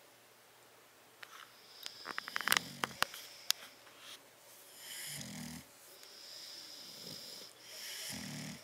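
Bulldog snoring in sleep: rasping snores about every three seconds. Around the first snore, about two seconds in, comes a quick run of sharp crackling clicks.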